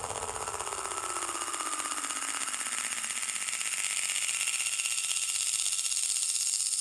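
Live electronic noise music: a dense, rapidly pulsing buzz with a tone gliding slowly downward and a steady high hiss, growing gradually louder.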